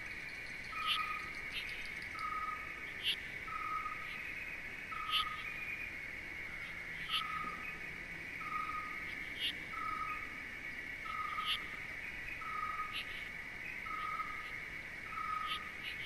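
Night nature ambience: a steady high insect drone, with a short pure note repeating evenly about every one and a half seconds and brief higher chirps every couple of seconds.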